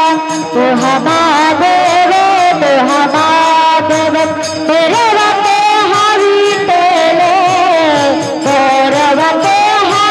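Devotional kirtan music: a continuous melody with sliding, bending pitch over regular percussion strokes.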